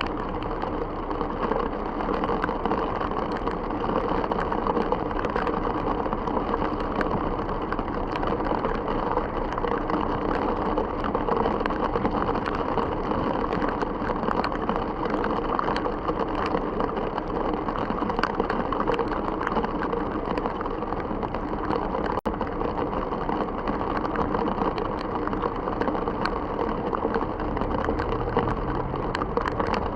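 Heavy rain on a moving car, mixed with tyre noise on the flooded road, a steady wash of sound.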